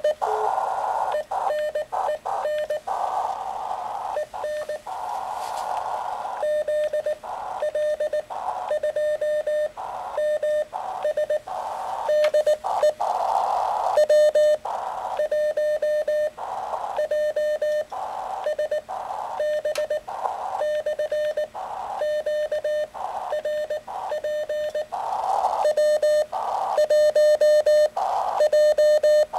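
Morse code on an amateur radio transceiver: a single steady mid-pitched tone keyed on and off in dots and dashes over a hiss of band noise that drops out in short gaps.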